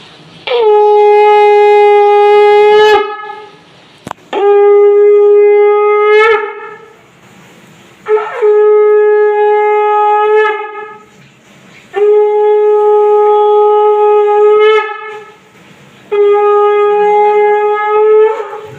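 Conch shell (shankha) blown in five long, steady blasts of two to three seconds each. Each blast ends with a brief upward lift in pitch. It is the ritual conch blowing that marks the Bhai Phonta blessing.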